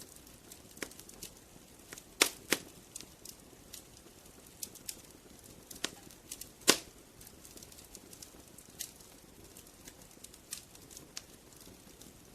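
Wood fire crackling: irregular sharp pops and snaps of burning firewood over a low steady hiss, with the loudest pops about two seconds in and again near the middle.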